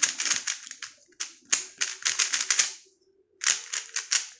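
Cubelelo Little Magic 3x3 Elite-M magnetic speed cube being turned fast: rapid runs of clicking layer turns, a short pause near the three-second mark, then another quick burst of turns.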